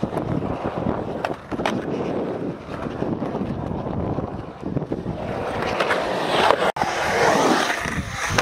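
Skateboard wheels rolling and carving over a concrete bowl, with a few sharp clacks of the board. Near the end a louder, brighter scrape as the board grinds along the bowl's coping.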